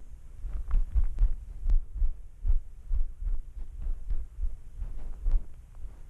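Irregular low thumps, about two or three a second, picked up through a camera strapped to a cat crouched in long grass.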